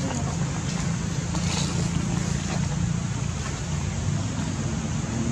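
A motor running steadily, its low hum stepping up in pitch about four seconds in, over a steady rushing noise.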